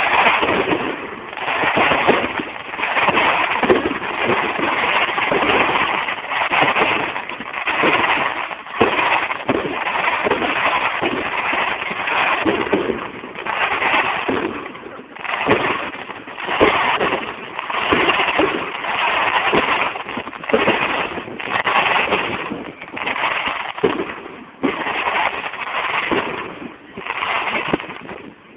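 Fireworks display: a rapid, continuous run of bangs and crackling shells, one after another, swelling and dipping every second or two.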